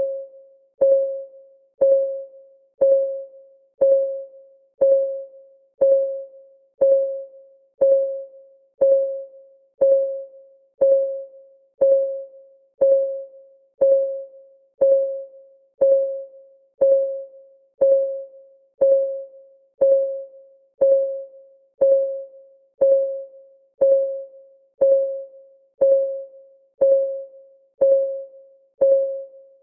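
Clock ticking sound of a countdown timer: one tick per second, each a short click with a brief pitched ring that dies away quickly, perfectly regular.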